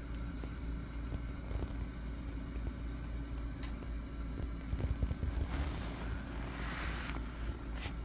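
Steady low background hum, with a soft rustle of fabric starting about five and a half seconds in and lasting about two seconds, and a couple of faint clicks.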